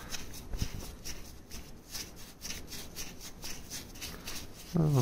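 A Beetle engine part being rubbed clean by hand: a run of quick, irregular scratchy strokes.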